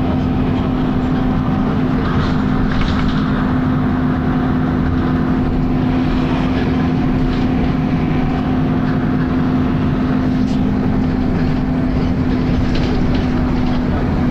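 Volvo B10BLE single-decker bus running, a loud steady drone with a constant tone over the noise of the bus.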